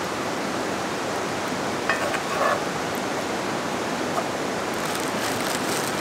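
Steady rushing of a river close by, with a few faint clicks about two seconds in.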